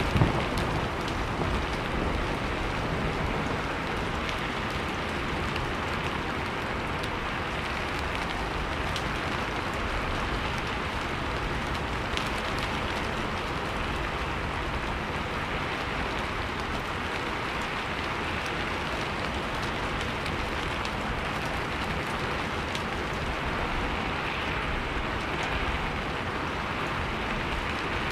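Steady rain falling, an even hiss of many drops. In the first second the tail of a low thunder rumble dies away.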